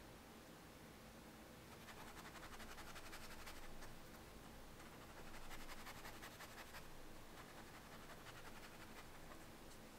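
Faint scratchy brushing of a wet paintbrush stroking back and forth over sketchbook paper, dissolving a water-soluble wax pastel swatch. It runs from about two seconds in to about seven seconds in.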